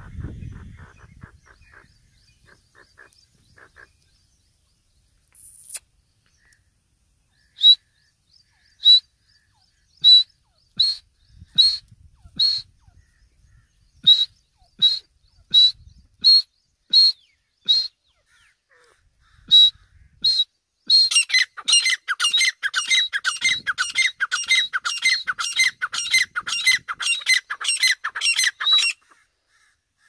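Grey francolin calling: a string of single sharp, high notes about a second apart, then a fast run of repeated ringing call phrases, about three a second, for the last eight seconds or so.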